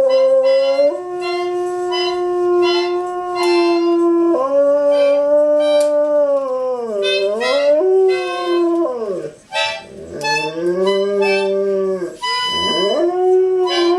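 A dog howling along to an instrument in long, wavering notes that bend and sag in pitch, breaking off briefly about nine and a half and twelve seconds in.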